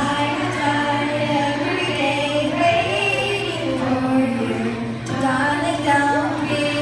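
A girl singing solo into a handheld microphone, held notes that slide between pitches, with steady accompanying music beneath, amplified in a large hall.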